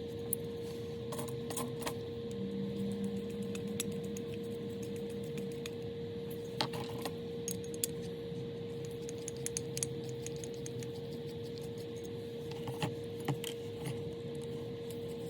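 Scattered light metallic clicks and clinks of small parts being handled, over a steady hum.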